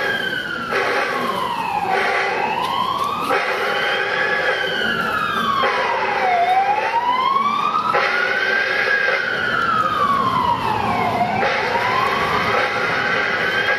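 A siren wailing, its pitch rising and falling slowly and evenly about three times, over a steady held chord of tones that shifts every couple of seconds.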